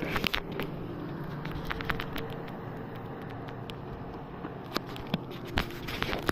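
Small water slaps and patters against the plastic hull of a kayak, with a few sharp clicks, over the steady low hum of a distant motorboat engine.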